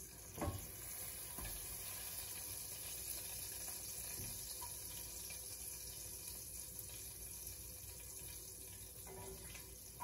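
Hamburger grease sizzling steadily in a hot cast iron skillet as browned patties are lifted out, with a short knock of the utensil against the pan about half a second in.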